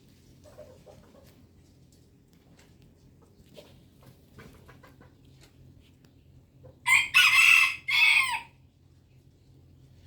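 A rooster crows once, loud and in a few broken segments, about seven seconds in.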